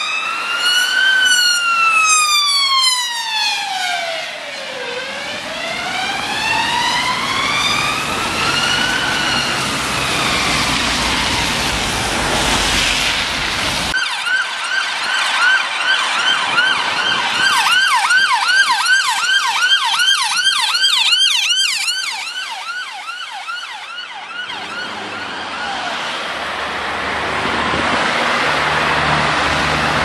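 Emergency vehicle sirens: an ambulance rapid response car's siren on a slow wail, rising and falling every few seconds, then after a cut another emergency car's siren on a fast yelp, about three sweeps a second, for around eight seconds. Passing road traffic follows near the end.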